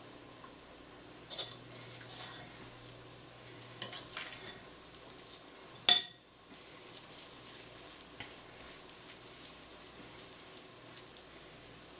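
Cooking utensils handled at a soup pot: a few soft knocks and one sharp clink just before halfway, over a faint steady hiss.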